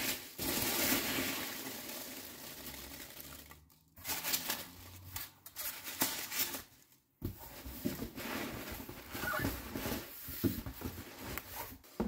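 Foam packing peanuts rustling and crunching as hands dig through them in a cardboard box, in three stretches with short pauses about four and seven seconds in.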